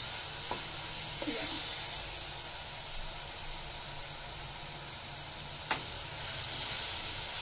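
Coconut and jaggery modak filling sizzling with a steady hiss in a hot pan as it is stirred with a wooden spatula; the jaggery has fully melted and the filling is being roasted dry. One sharp knock against the pan a little before six seconds, and a fainter one near the start.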